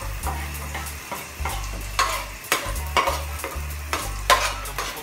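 Chopped garlic sizzling in hot oil in a frying pan, with a utensil scraping and tapping against the pan and board in sharp clacks about twice a second as it is stirred in.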